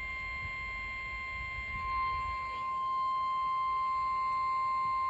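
Weather radio's 1050 Hz warning alarm tone, a single steady high-pitched tone that sounds ahead of a severe thunderstorm warning; it gets a little louder about two seconds in.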